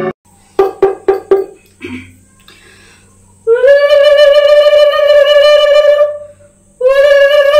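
Four short knocks, then a conch shell (shankha) blown in two long steady notes: the first lasts about three seconds, and the second starts near the end.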